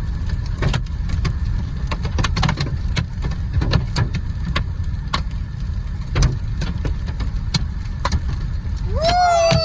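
Hailstones striking a moving vehicle, in sharp, irregular knocks a few per second, over steady road and engine rumble.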